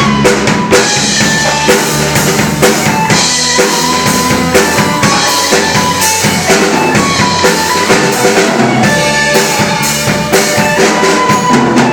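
A band playing an instrumental passage of a rock-style song, with a drum kit keeping a steady beat under sustained instrument notes.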